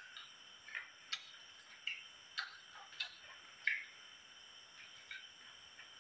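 Night insects, crickets, keep up a steady high-pitched chorus. Over it come irregular short clicks and smacks from someone eating close by, about one or two a second.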